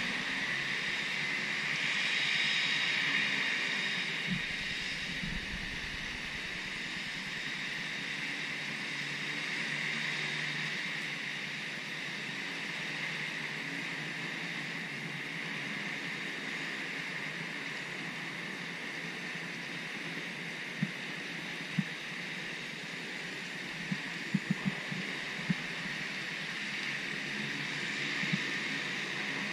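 Steady hiss of rain falling, with a few sharp clicks about two-thirds of the way through.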